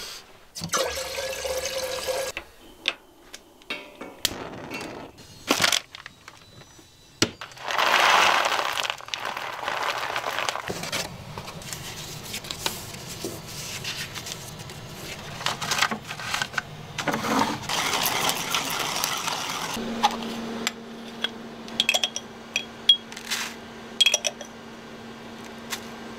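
Pour-over coffee being made at a kitchen counter: a loud rush of running water about eight seconds in, paper coffee filters handled, and a spoon clinking against the drippers, with scattered clicks and knocks. A steady low hum sets in about twenty seconds in.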